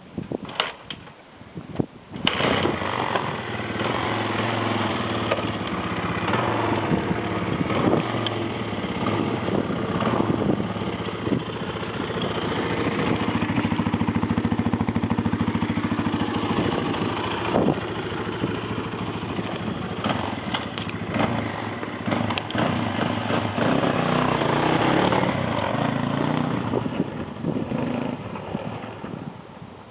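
1991 Honda XR200R's air-cooled single-cylinder four-stroke engine, breathing through a muffler with an inner silencer fitted. It catches suddenly about two seconds in, then runs with its pitch rising and falling.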